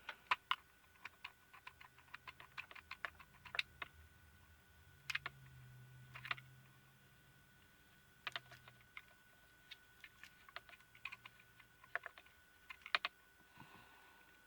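Light, irregular clicks and taps of a small screwdriver and the projector's small plastic parts being handled while it is taken apart.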